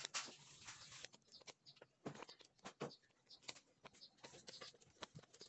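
Faint, irregular crackling and popping of firewood burning in a small wood-fired stove.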